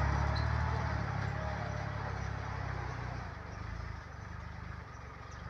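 Engine of a small rice-husk loader tractor running with a steady low hum that grows fainter over the first few seconds as the tractor moves away.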